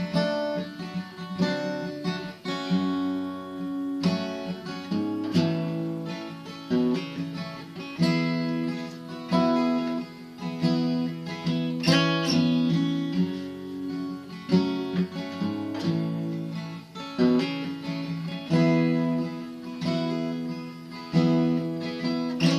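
Acoustic guitar playing an instrumental break, chords struck roughly once a second and left ringing.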